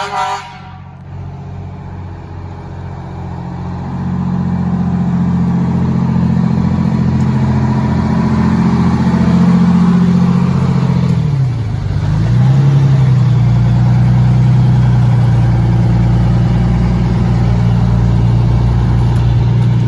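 Fire engine's diesel engine running close by as the truck pulls out and drives off, growing louder about four seconds in; about halfway through its note falls briefly and picks up again.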